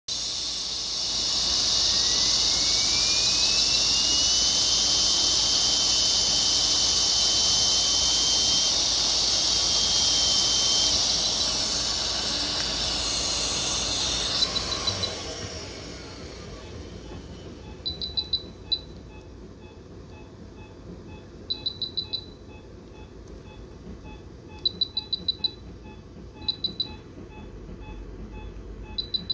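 A loud, steady hiss with a whine that rises in pitch and then holds, fading out about halfway through. Then an anaesthesia patient monitor beeping quietly about twice a second, with short runs of four or five higher alarm-style beeps every few seconds.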